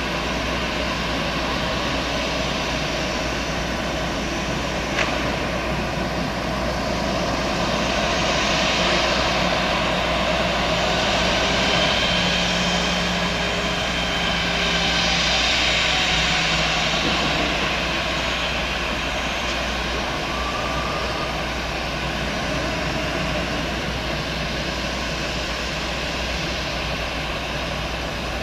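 Airbus A320's jet engines running steadily, swelling louder twice and easing back.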